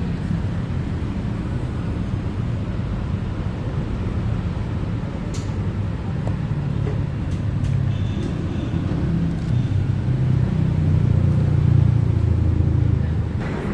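Steady low rumble of background noise, growing a little louder about ten seconds in, with a few light clicks in the middle.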